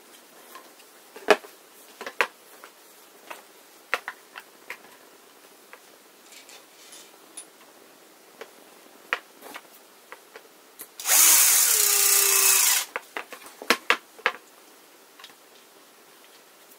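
Cordless drill-driver runs in one burst of under two seconds about two thirds of the way through, its motor tone sagging near the end. Around it, hard plastic mop-mechanism parts click and knock as they are handled and set down on a particleboard panel.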